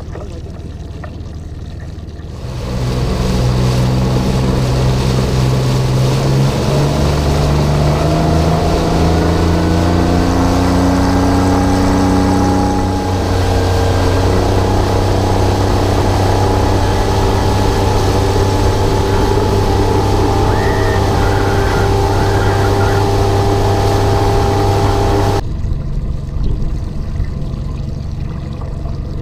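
Bass boat's outboard motor accelerating, its pitch climbing for several seconds, then running steadily at speed with wind and water spray rushing past. The engine sound stops abruptly near the end, leaving quieter lapping water and wind.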